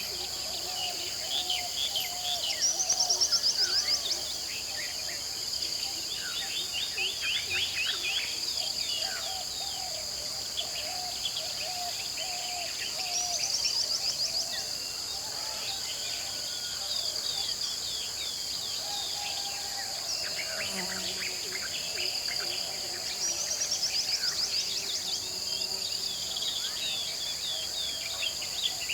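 Tropical jungle dawn chorus: a steady high insect drone under many overlapping bird calls, with lower warbling calls and a loud rapid trill that comes back about every ten seconds.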